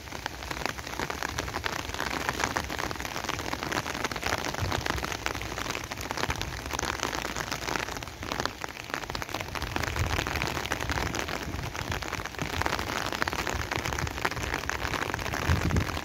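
Heavy rain falling steadily, a dense patter of raindrops.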